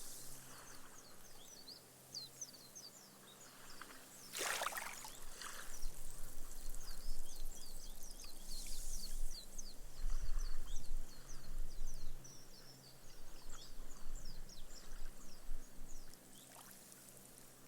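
Small waves lapping on a sandy beach: a short wash of water about four seconds in and softer swells around it, with foam fizzing in many tiny pops as the water soaks into the sand.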